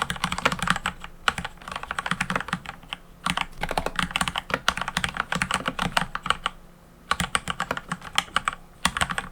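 Mechanical keyboard typed on quickly: a dense run of keystroke clacks, with short lulls about three seconds in and near seven seconds. This is typical of the test after its switches were fully lubed with Super Lube oil-grease mix and fitted with switch films, and its stabilizers lubed.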